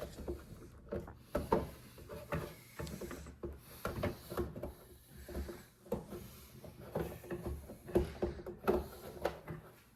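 Irregular clicks, knocks and rubbing as parts of a 3D printer are handled and fitted together during assembly.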